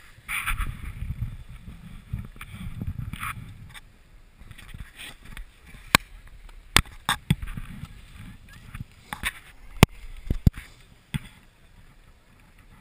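Handling noise on a hand-held GoPro: low rubbing rumbles through the first few seconds, then a series of sharp clicks and knocks as fingers move over the camera.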